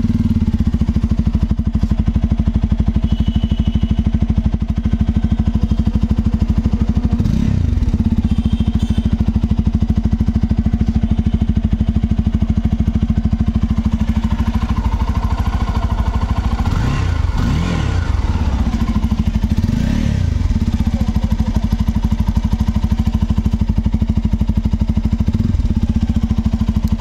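Bajaj Pulsar F250's single-cylinder engine idling steadily, heard at its twin-outlet silencer, with a few short throttle blips: one about a third of the way in and three close together just past the middle.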